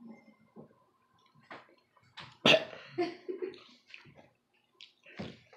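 A person chewing a mouthful of candy-coated chocolates, with one loud cough about two and a half seconds in, followed by short throaty sounds.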